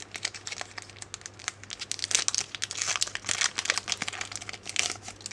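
Trading-card pack wrappers crinkling and rustling in irregular bursts as packs are handled and cards pulled out, the sound dying away near the end.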